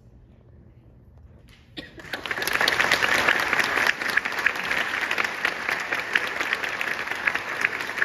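A hush lasting about two seconds, then an audience starts applauding and keeps clapping steadily.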